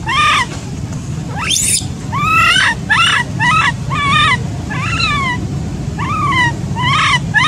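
Baby macaque crying: a string of about ten short, high cooing calls, each rising then falling in pitch, one or two a second. These are the distress cries of an infant left without its mother.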